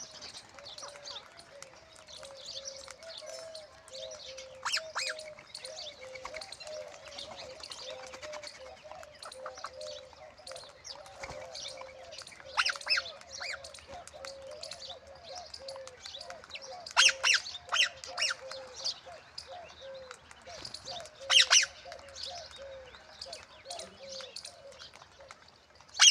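Parrot giving short, sharp squawks in scattered bursts, the loudest clusters about two-thirds of the way through, over a steady wavering background tone.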